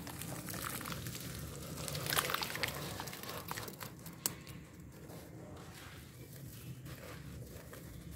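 Thick wet red-clay paste poured over chunks of dry, grainy red dirt, splatting and crackling as it lands and soaks in, loudest about two seconds in. Near the end, hands squish and lift a paste-coated chunk.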